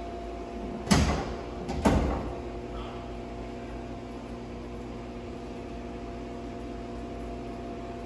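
A heavy door swings shut slowly under a commercial door closer whose closing speed has just been turned down, too slow by the installer's judgement. Two sharp knocks come about a second apart near the start, then only a steady hum.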